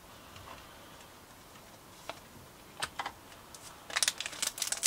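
Cards and a foil booster pack being handled: a few faint clicks, then from about four seconds in a quick run of sharp crinkly clicks as the foil pack is picked up and gripped.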